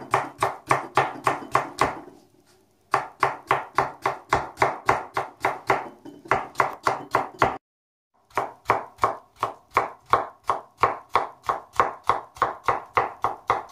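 Kitchen knife chopping peeled potatoes into small dice on a plastic cutting board: quick, even strokes at about four a second, pausing briefly about two seconds in and again near the middle.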